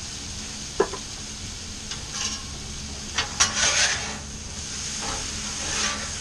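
Zucchini, potatoes and onions sizzling on a hot flat-top griddle. There is a sharp knock just under a second in, then metal spatulas scrape and turn the vegetables, loudest from about three to four seconds in.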